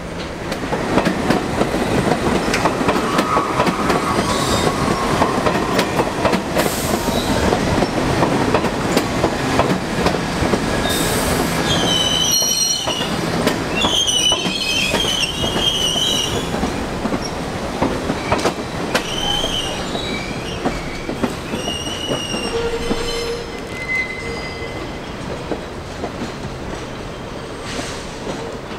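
New York City Subway trains running over the tracks and switches: a loud steady rumble of steel wheels on rail with clicking over the joints. From about eleven seconds in, the wheels squeal in high, wavering tones for several seconds, with shorter squeals a little later, before the rumble eases near the end.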